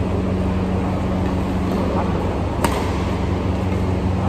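A badminton racket strikes a shuttlecock once, a sharp crack a little past halfway, during a rally. Under it is a steady low hum from the indoor hall.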